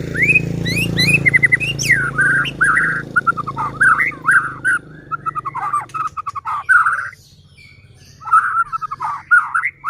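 White-rumped shama (murai batu) singing a fast, varied song of rising and falling whistles and chattering notes, pausing for about a second near the end before starting again.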